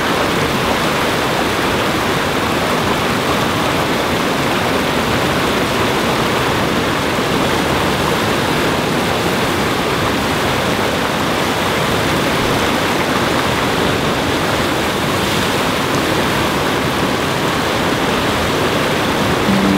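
Whitewater of a man-made standing surf wave in a river, rushing steadily and evenly without a break.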